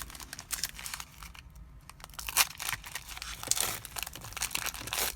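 Foil booster-pack wrapper crinkling and trading cards being handled, in irregular sharp rustles with a brief lull about a second and a half in.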